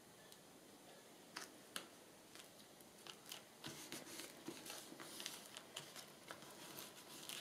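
Faint rustling and light clicks of paper and card being handled and pressed down, a few at first and then more often from about three seconds in.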